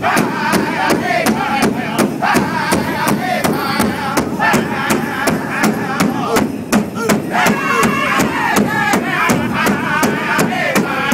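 A group of singers chanting together in high, wavering voices over a steady, even drumbeat of about four strokes a second, in the style of a powwow drum group.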